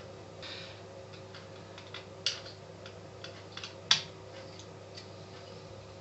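Scattered small clicks and taps of a screwdriver and fingers working on an opened plastic electric shaver, with two sharper clicks a little past two seconds and near four seconds in, over a faint steady hum.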